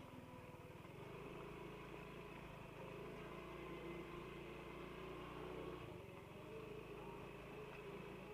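Motorcycle engine running faintly and steadily as the bike rolls slowly.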